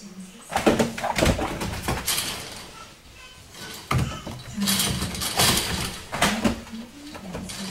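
Macaques scuffling in a chain-link cage: two spells of knocks and rattles on the fencing and platforms, with a few faint short squeaks in the lull between them.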